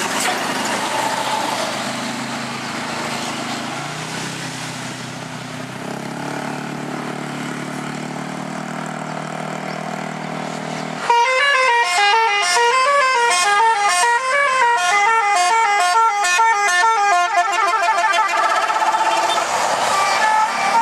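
A large vehicle's engine runs under heavy road noise. About 11 s in, a Basuri 'telolet' multi-tone bus horn plays a fast melody of notes stepping up and down for about seven seconds.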